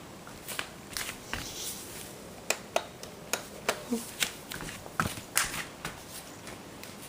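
Scattered light clicks and rustles, about fifteen irregular ones, like small objects being handled.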